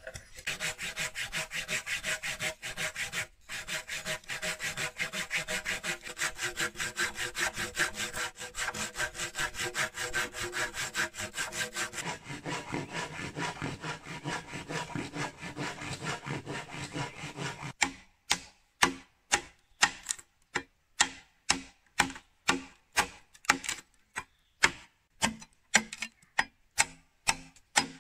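A blade working against wood in fast, even strokes, about four or five a second. About 18 seconds in it changes to separate, sharper strikes about two a second, each with a short ring.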